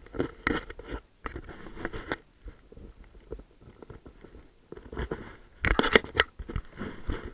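Kayak paddling: the paddle splashing in and water slapping against the kayak's hull, heard as irregular splashes with the loudest burst about six seconds in.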